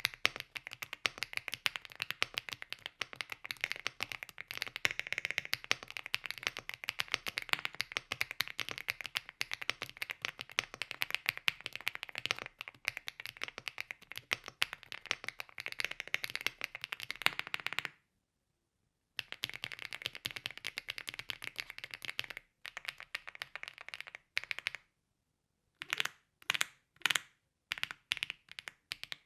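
Typing on a stock Rainy75 Standard aluminium mechanical keyboard with WOB Crape Myrtle (HMX Violet) linear switches: fast, continuous keystrokes that stop briefly about two-thirds of the way through, then resume and break up into short separate bursts of keystrokes near the end.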